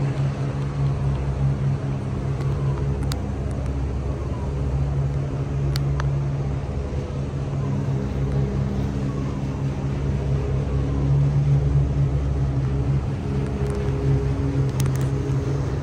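A boat's engine runs steadily under way with a constant low hum, and a few faint clicks sound over it.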